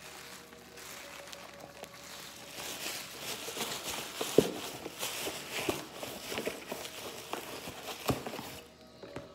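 Packaging being unwrapped by hand: bubble wrap, paper and a cardboard box rustling and crinkling, with a few sharp knocks in the middle, the loudest about four seconds in. The rustling dies down just before the end.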